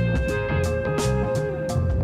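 Background music led by guitar, with held notes over a bass line and a steady beat of sharp percussive hits.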